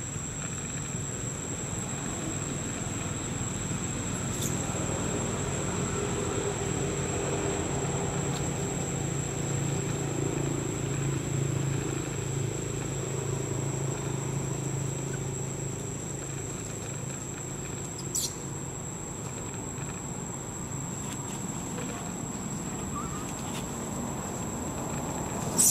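Steady high-pitched insect drone over outdoor ambience, with a low hum that swells and fades through the middle and two faint clicks.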